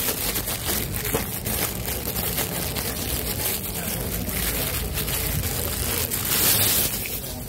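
Thin plastic produce bag rustling and crinkling close to the microphone while it is handled, over a steady rumbling noise.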